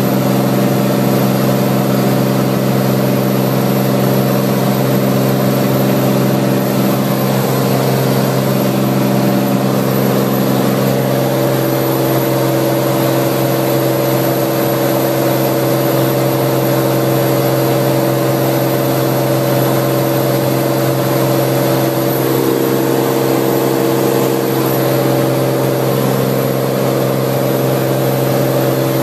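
Cirrus SR20 single-engine piston aircraft's engine and propeller droning steadily in flight, a constant hum with a rushing hiss, a few of its tones shifting slightly in pitch a couple of times.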